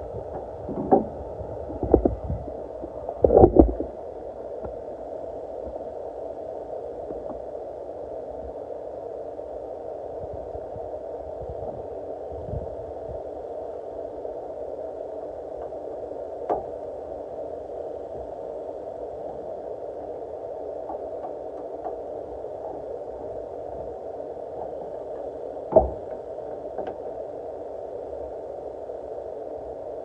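Scattered clicks and knocks of a hand driver against the pickup's tail light and bed pillar while the tail lamp is being removed: a cluster in the first few seconds, then single knocks spaced well apart, the sharpest about 26 seconds in. A steady hiss lies under them.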